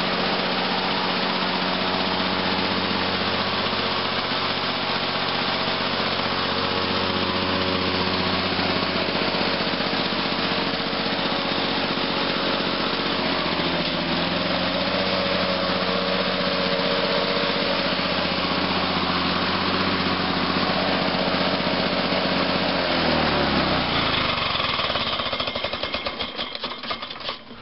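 1986 Lawn-Boy 8461 Commercial push mower's two-stroke engine running steadily just after a cold start. About 23 seconds in it is shut off: the pitch drops and it coasts down to a stop with a few fading ticks.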